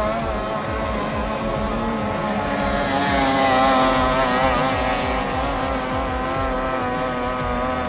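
Racing outboard engines on tunnel-hull power boats running at high revs, a steady high engine whine with a wavering pitch over a rough low rumble.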